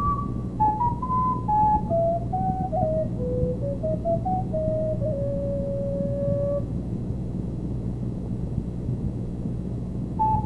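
Solo recorder playing a descending melodic phrase that ends on a long held note, then about four seconds of pause before the next phrase begins at the very end, over a steady low hum.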